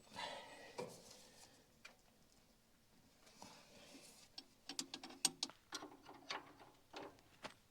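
Faint hand work on an excavator's covers and AC hose: a scrape at the start, then a run of small clicks and clinks in the second half.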